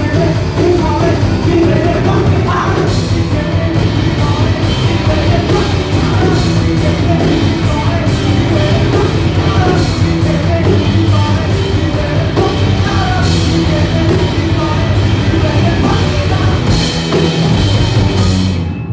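Live rock band playing loud through a PA, drum kit keeping a steady beat with cymbal strokes about two a second under bass and singing; the song stops abruptly at the very end.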